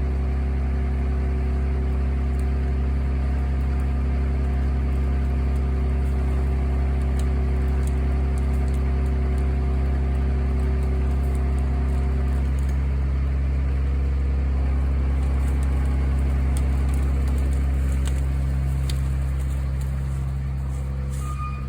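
Medium-duty wrecker's diesel engine running steadily during the winch pull, one higher tone in it dropping out about halfway. A reversing beep starts right at the end.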